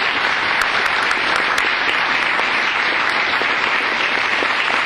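Lecture-hall audience applauding steadily, a dense patter of many hands clapping at the close of a talk.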